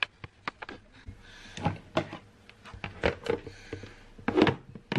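Clear plastic Tupperware storage box handled on a wooden cutting board: raw meat pieces put in and a plastic lid fitted on. A string of clicks, knocks and plastic rustles, loudest about four and a half seconds in.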